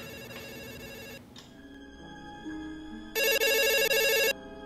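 Office desk phone ringing with an electronic trill. One ring stops about a second in, and a second, louder ring of about a second starts a little after three seconds in. Soft held background music notes fill the gap between the rings.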